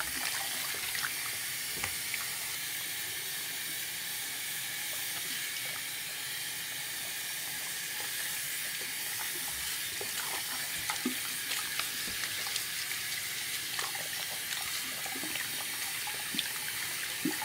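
Water running steadily from a tap, with a few faint knocks scattered through it.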